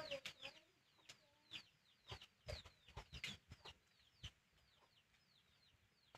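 Faint, high bird peeps: many short falling chirps repeating two or three times a second, with a few soft clicks among them.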